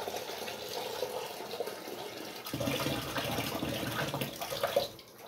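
Water running from a tap into a metal cooking pot, stopping about five seconds in.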